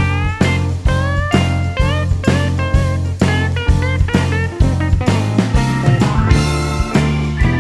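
Background music: a guitar lead with bent, sliding notes over a steady bass line and drums, in a blues-rock style.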